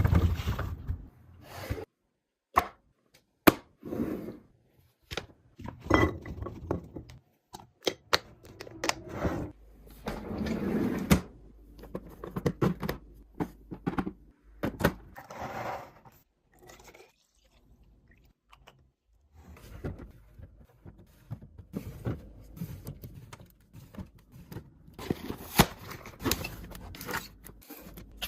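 Snacks and drinks being handled and set into a fridge or drawer during a restock: irregular knocks, clunks and taps of items being put down, with scraping and packaging rustling in between, and a short lull partway through.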